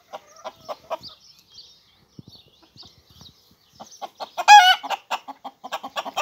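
Chickens clucking in short bursts, with one loud, wavering call from a bird about four and a half seconds in.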